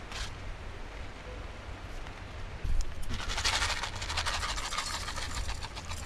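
Foil soup-mix packet crinkling and rustling as it is torn open and handled, with a dense crackle starting about three seconds in and lasting a second and a half.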